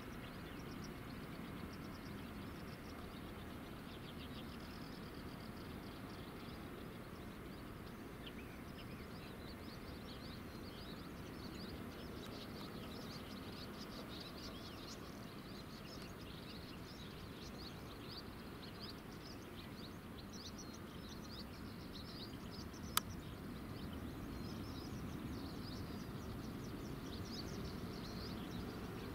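Distant jet airliner taking off: a steady low rumble, with small birds chirping over it from several seconds in. A single sharp click a little past two-thirds of the way through.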